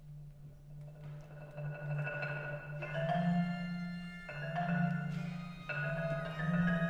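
Orchestral music starting quietly: a held low note under struck, ringing high chords that come in about every second and a half and grow louder.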